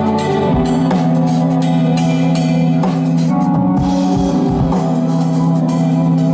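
Live instrumental music: a drum kit playing a beat with kick drum hits over long held synthesizer notes, the notes shifting pitch about half a second in.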